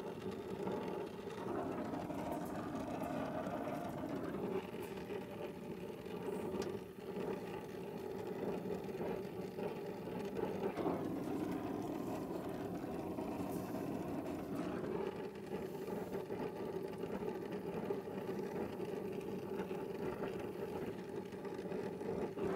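Brazing torch flame burning steadily as it is played on copper refrigerant tubing, first to burn off foam-tape adhesive and then to braze a joint.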